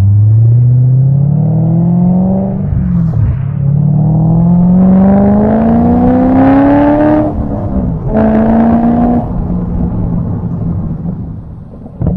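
C6 Corvette V8 with LG Motorsports headers and exhaust accelerating through the gears: the engine note climbs, drops at a shift about three seconds in, climbs again to a second shift about seven seconds in, holds steady briefly, then settles back to a lower steady drone.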